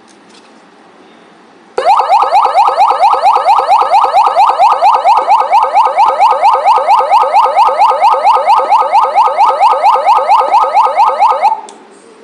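YHAAVALE 6203 electronic police siren sounding a loud tone of rapid rising sweeps, about four a second. It starts abruptly about two seconds in and stops near the end.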